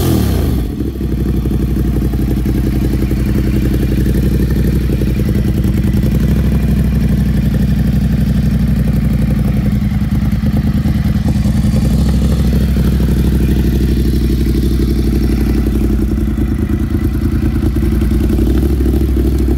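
Ducati Monster 1200S's L-twin engine running through an SC Project slip-on exhaust with the bike standing in neutral. It comes down from a rev in the first second and then idles steadily.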